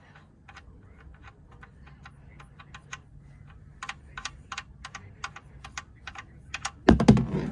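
Light, irregular clicks, a few a second and growing louder, as the oil drain plug is backed out of the oil pan. Near the end comes a sudden loud rush as the plug comes free and the oil starts to pour.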